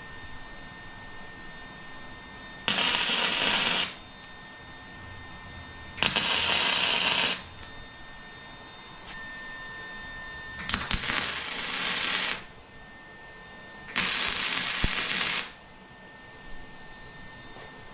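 Electric arc welding on steel square tubing: four short welds, each a crackling, sizzling hiss lasting about a second and a half, with pauses between them.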